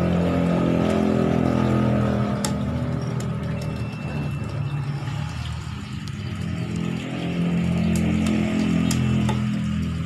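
A motor engine running, its pitch and level rising and falling: louder at first, easing off mid-way, then building again near the end. Under it, water runs from a tap into a tub, with a few sharp knife taps on a wooden board.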